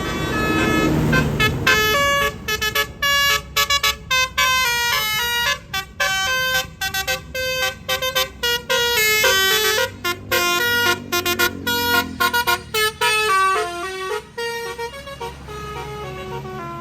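Basuri telolet bus horn playing a tune: a quick run of short, bright air-horn notes that jump up and down in pitch with brief breaks. The notes start about a second and a half in and stop shortly before the end, over low vehicle noise.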